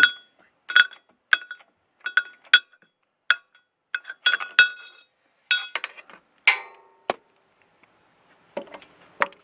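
Sharp metallic clinks and taps, over a dozen spread irregularly, each ringing briefly, with one longer ring about six and a half seconds in: steel tools, a socket extension and Torx bit, knocking against the hub's Torx bolts and hub assembly.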